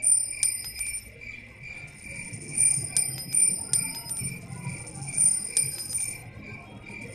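High, tinkling chimes with a run of sharp clinks, over crickets chirping in a steady pulse.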